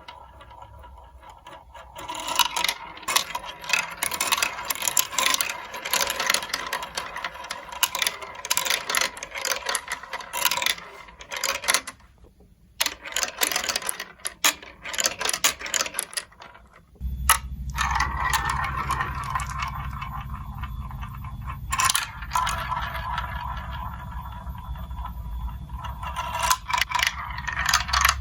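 Marbles clattering and rattling down a marble-run building-block track, a dense run of clicks with two short lulls. About two-thirds of the way in, a low steady hum starts and runs under the clatter.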